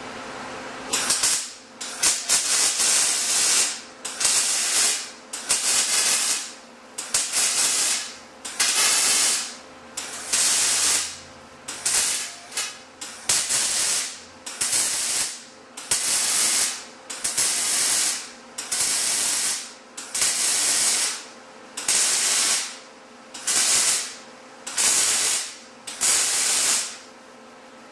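MIG welder arc hissing and crackling in a long run of short, one-second bursts on steel square tubing, stopping and restarting over and over as wire is laid into wide-open root gaps.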